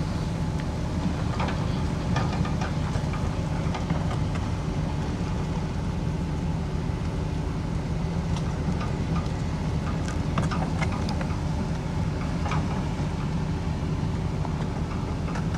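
Heavy diesel earthmoving machinery running steadily under a low drone, with scattered short metallic clanks and rattles.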